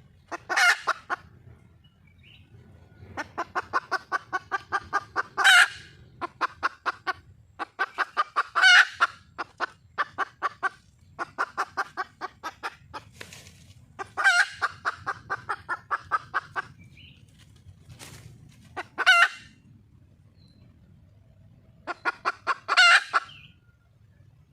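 Junglefowl hen calling for a mate: runs of rapid clucks, about five a second, each broken by a loud harsh squawk, six squawks in all.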